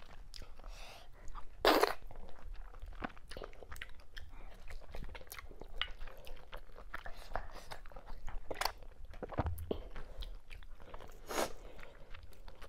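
Close-miked chewing with wet mouth smacks and clicks, from a mouthful of fufu with slimy okra and ogbono soup. A few louder smacks come about two, nine and eleven seconds in.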